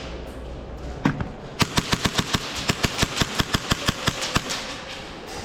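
Airsoft guns firing: a rapid string of sharp shots, several a second, from about a second in until near the end.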